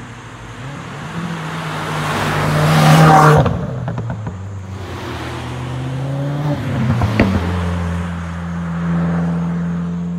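A car engine accelerating hard through the gears. The revs climb for about three seconds and drop sharply at a shift, climb again, then drop once more with a sharp crack about seven seconds in, before settling into a steady run.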